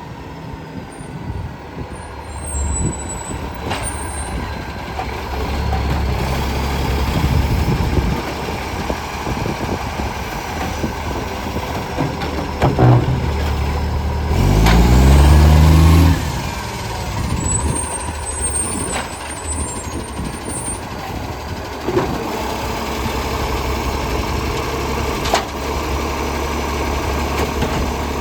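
ACCO garbage truck engine running with an exhaust leak that makes it loud and roaring. It revs up with a rising pitch for a couple of seconds about halfway through, and a few sharp knocks sound along the way.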